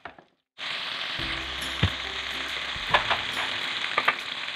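Flour-coated chicken pieces deep-frying in oil: a steady sizzle with a few sharp pops, starting about half a second in.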